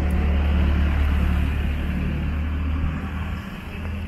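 A motor vehicle's engine running close by, a steady low rumble over street noise that fades away about three and a half seconds in.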